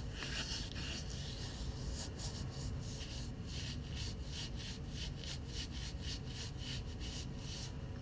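Quick rubbing or scraping strokes, about four a second, that stop near the end, over the steady low hum of a tanker underway heard from inside the bridge.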